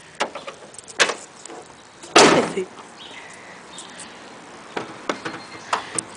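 A car hood being closed: a lighter knock about a second in, then the hood slamming shut about two seconds in, ringing on briefly. A few light ticks follow near the end.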